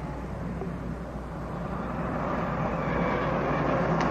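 Large American sedan driving along the street, its engine and tyre noise a steady rush that grows louder as it approaches.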